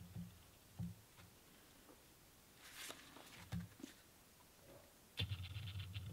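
Faint handling of a paperback manga as it is opened and held up: a few soft knocks and one brief rustle of paper pages about three seconds in. A low buzzing sound comes in about five seconds in.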